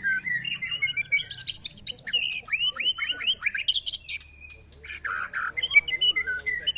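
White-rumped shama (murai batu) singing a fast, varied song of whistles, quick rising slurred notes and chattering phrases, sung in a 'mental test' against rival shamas.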